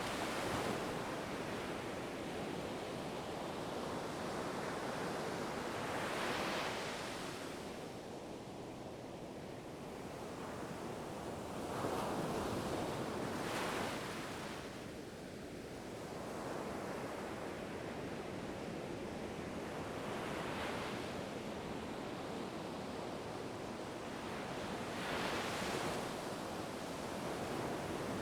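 Ocean waves washing onto a shore in a steady hiss, with a louder surge of breaking surf every five to seven seconds.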